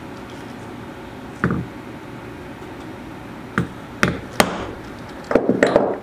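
Mallet striking a snap-setting tool on a single cap rivet over a small steel anvil: single sharp strikes a second or two apart, then a quick run of louder strikes near the end. The rounded tip of the setter is splitting the rivet barrel open and flattening it around the leather.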